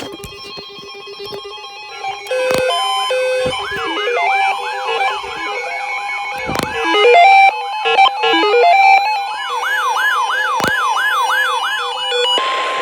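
Layered electronic alarm tones of a mock Emergency Alert System warning: steady tones and stepping beeps under a siren-like sweep that repeats about three times a second. A burst of hiss comes near the end.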